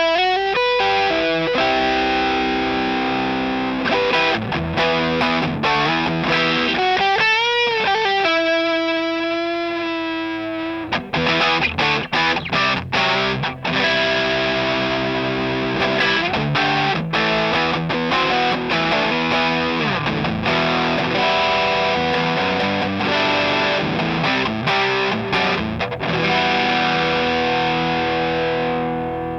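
Electric guitar played through the DIYGP Night Drive, an overdrive pedal modelled on the Love Pedal Eternity, with a distorted tone. It starts with held notes and a bent, wavering note, moves to choppy stop-start chords in the middle, and ends on long ringing chords.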